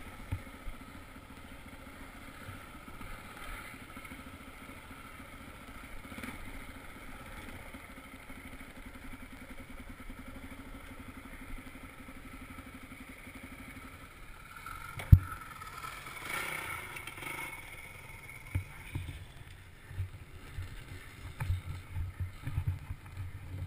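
Dirt bike engine running at a low, steady putter while the bike creeps over slickrock. About fifteen seconds in there is a single sharp knock, and near the end irregular low rumbling.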